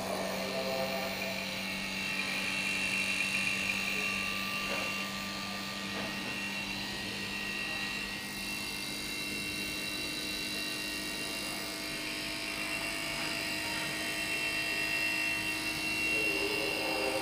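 A machine running steadily: a low motor hum with a faint, high, steady whine over it.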